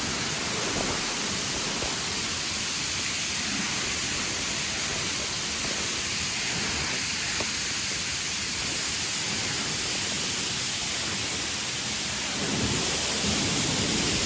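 River water rushing, a steady, even hiss with no breaks.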